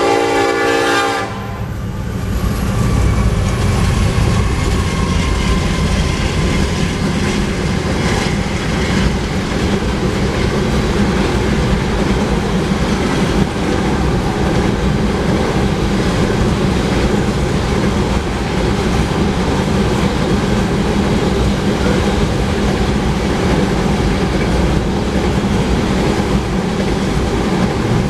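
A freight locomotive's horn cuts off about a second in. Then a heavy loaded oil train rolls steadily past, its many tank cars' wheels making a deep rumble and a clickety-clack on the rails.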